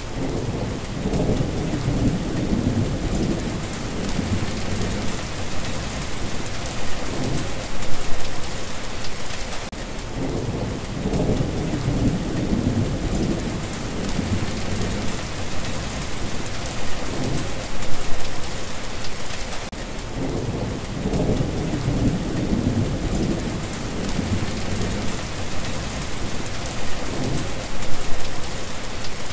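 Steady rain with low rolls of thunder rumbling several times. The same stretch of storm repeats about every ten seconds: a short recording looped.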